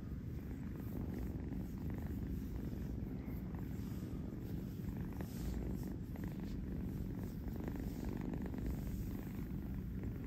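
Tabby kitten purring steadily as it sleeps, a low continuous purr.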